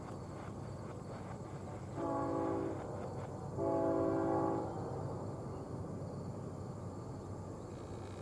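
Air horn of a CSX GE diesel locomotive leading an intermodal freight train, sounding a chord of several notes: a short blast about two seconds in, then a longer one about a second later. Under the horn runs the steady rumble of the approaching locomotives.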